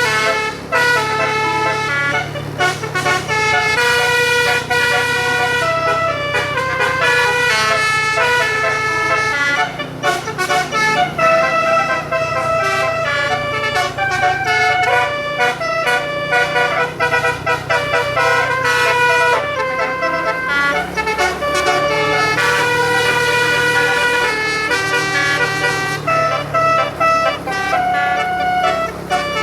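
Bus telolet horn playing a tune of quick stepped notes, phrase after phrase with brief breaks, over a steady low hum.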